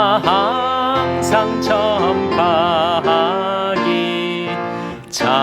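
A Korean hymn sung with a strong vibrato over instrumental accompaniment, with a short break in the singing near the end.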